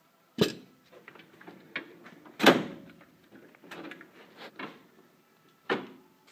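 Drawers of a steel Lista tool cabinet being shut and opened, with three sharp knocks (the loudest about two and a half seconds in, another near the end) and lighter clicks and clatter of hand tools between.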